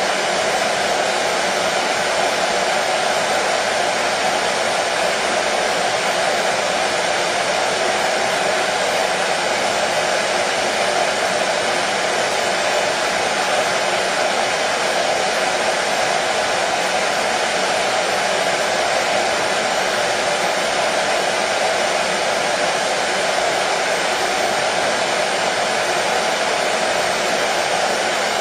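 Hair dryer running continuously at a constant speed: a steady whooshing hum of fan and airflow, with no change in pitch or level, used as soothing white noise for a colicky baby.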